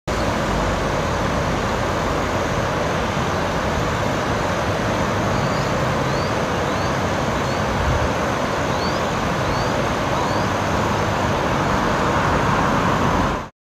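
Swollen floodwater rushing past in a steady roar, with a few short rising bird chirps in the middle. The sound cuts off suddenly near the end.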